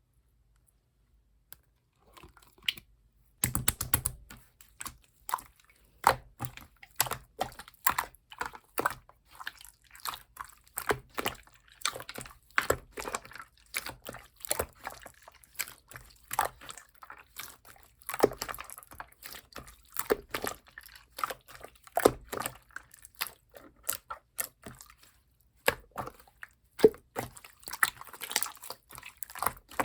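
Slime being squeezed and kneaded by hand, making irregular wet pops, clicks and squishes. It begins after a short near-silence about three seconds in and goes on densely.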